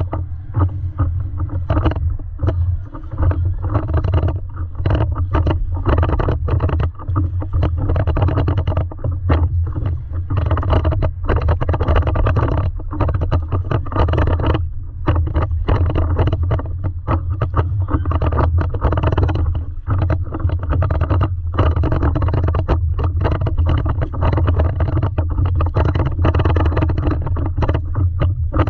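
Water sloshing and slapping against a stand-up paddleboard under a steady low rumble, with irregular splashes throughout.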